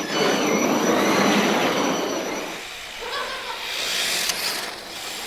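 Sakura D4 RC drift car sliding around the track, its hard drift tyres scrubbing and hissing on the surface with a faint high motor whine. Loud for the first couple of seconds, then easing off.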